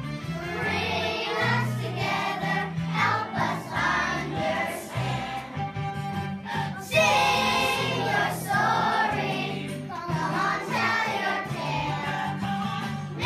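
A song with several voices singing over steady, held bass notes. A louder sung phrase comes in about seven seconds in.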